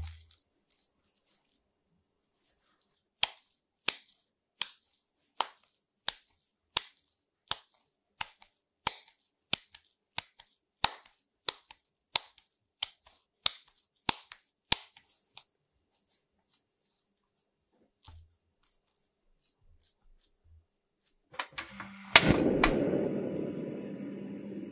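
Wet slaps of ground-meat hamburger mixture being tossed from palm to palm to knock the air out, about eighteen sharp slaps at a steady rhythm. Near the end, a sharp click followed by a steady low rush as the stove is lit under the frying pan.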